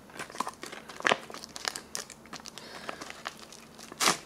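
Foil-laminate cracker pouch from a 1994 MRE crinkling as it is pulled open and the crackers are slid out, many small irregular crackles with a louder one near the end.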